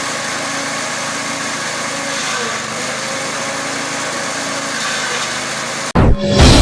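A small engine running steadily. Near the end it cuts off abruptly and loud music with hits comes in.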